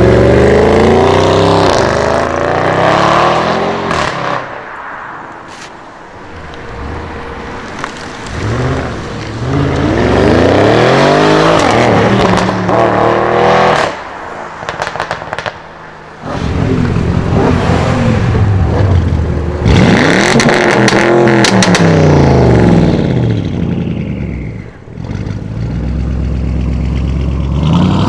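Audi RS6 C7's twin-turbo V8 accelerating hard several times. At each gear change the engine note climbs, then drops back. Each time the throttle lifts, the exhaust lets out bursts of crackles and pops.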